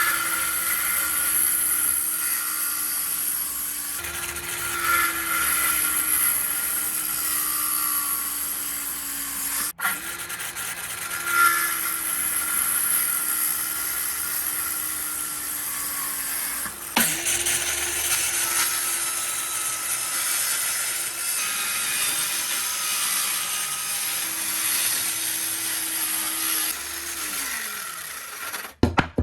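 An electric power tool runs steadily through wood, its motor pitch sagging slightly under load. The sound comes in three stretches, broken off abruptly about ten and seventeen seconds in, and the motor winds down near the end.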